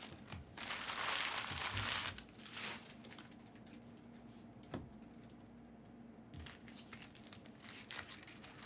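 Plastic trading-card pack wrappers crinkling and rustling as they are handled, loudest in the first two seconds, with a single click midway and softer rustling near the end.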